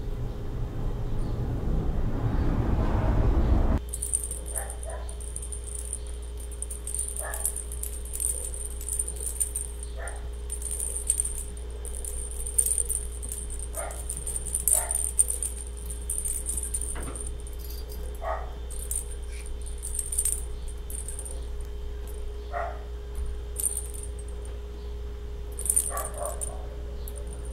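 Small bells inside plastic cat-toy balls jingling in irregular short bursts as a kitten bats at them. A rushing noise swells over the first few seconds and cuts off suddenly before the jingling starts.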